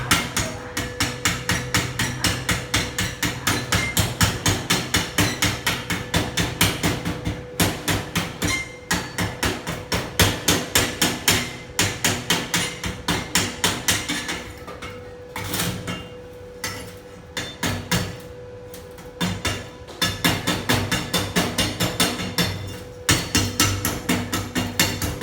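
Hammer striking metal in quick, even blows, about five a second, with a few short pauses partway through, over a steady hum.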